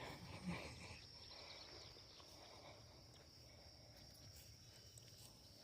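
Near silence with a steady high-pitched insect drone, like crickets, and a brief faint sound about half a second in.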